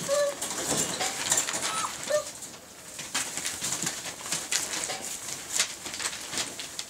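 Schnauzer puppies giving a few short, high whimpers and squeaks in the first couple of seconds, over newspaper rustling and crinkling under their paws as they move about.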